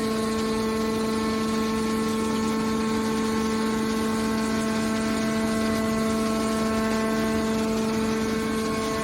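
Hydraulic baler's power unit running, a steady whine over a noisy mechanical hum.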